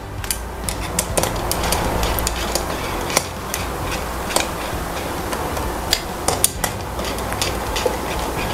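Small metal bolts being run into an air rifle's metal action block with a hex screwdriver, giving scattered light metallic clicks and ticks as the tool seats in the bolt heads and turns. The bolts are only being seated evenly, not yet tightened. A steady low hum lies underneath.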